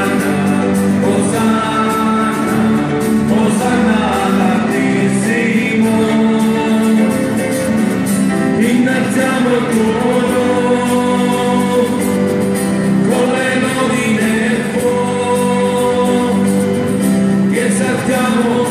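Voices singing a church hymn in chorus, with sustained instrumental accompaniment, echoing in a large church.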